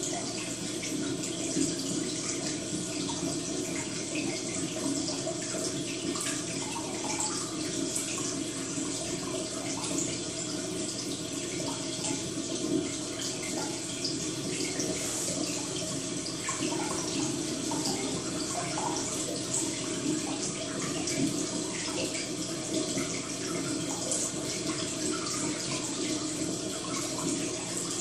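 Steady sound of running, trickling water with small splashes, unbroken throughout.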